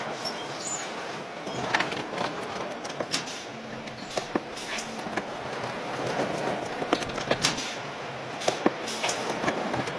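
Car assembly-line noise: a steady din of machinery with irregular clicks and knocks of parts and tools being fitted into the car bodies.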